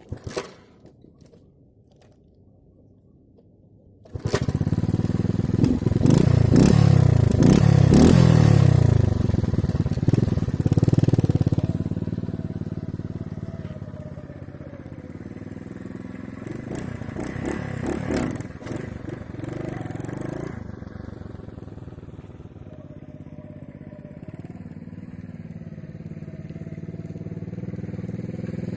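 Delta moped's small engine kicks in abruptly about four seconds in and is revved loudly, its pitch rising and falling. It then settles to a lower, steadier running note that builds slowly toward the end.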